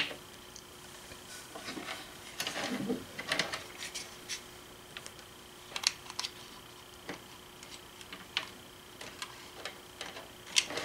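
Scattered sharp plastic clicks and rustling as telephone cords and modular plugs are handled and pushed into a white plastic jack adapter. A faint steady tone sits underneath and fades about two-thirds of the way in.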